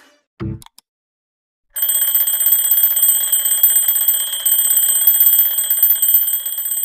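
Twin-bell alarm clock ringing, a fast continuous rattle of hammer strikes on the bells that starts about two seconds in and keeps going. A brief short blip comes about half a second in.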